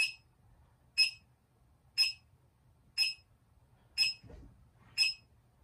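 A short, high electronic beep repeating evenly once a second, from one of the handheld meters. A faint low rustle comes about four seconds in.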